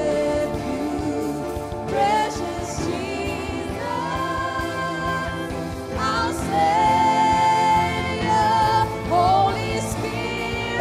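Church worship team singing a slow gospel worship song over musical accompaniment, with voices holding long notes.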